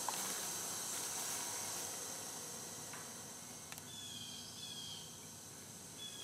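Steady high insect buzzing over a low hiss, with a few faint clicks and, about four seconds in, two short high chirps.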